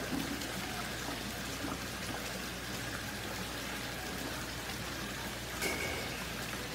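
Water running and trickling steadily in a shrimp-fishing pond, an even watery hiss. A short click sounds about five and a half seconds in.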